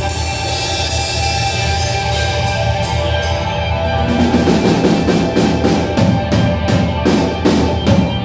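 Music: a sustained instrumental passage over a steady low bass, with a fast, even drum beat coming in about halfway through.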